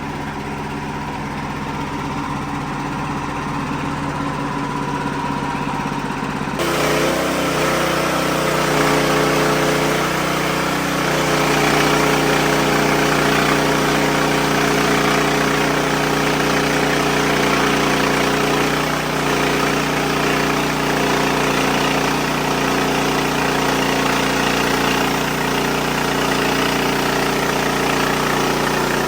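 Wood-Mizer LX55 band sawmill running as its band blade cuts through a large white oak log: a steady engine drone that turns suddenly louder about six seconds in, with a rushing hiss added, then holds steady.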